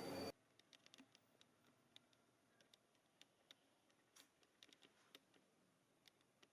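Near silence with faint, irregular light clicks, after a steady background noise cuts off abruptly just after the start.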